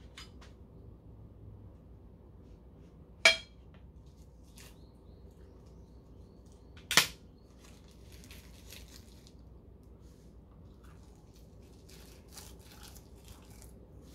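Eating sounds: dried seasoned laver crackling as it is folded around rice by hand and eaten, with faint scattered crackles. Two sharp clicks stand out, the loudest sounds, about three and seven seconds in.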